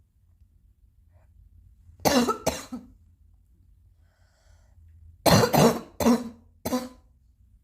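Coughing: two coughs about two seconds in, then a run of four coughs near the end, with a faint breath between them.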